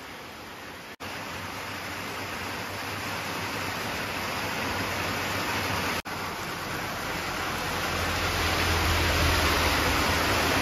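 Heavy rain pouring down, a steady hiss that grows louder, broken twice by brief gaps. In the second half a low rumble of a moving vehicle joins the downpour.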